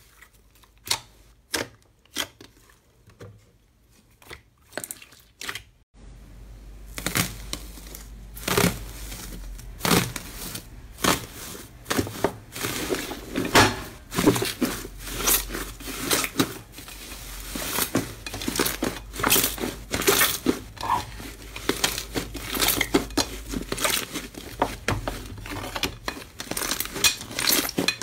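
Hands squeezing and pressing slime: sparse sharp wet clicks and pops at first, then, about six seconds in, a dense run of crackling and crinkling as a yellow slime mixed with pieces of silver foil is kneaded and pressed.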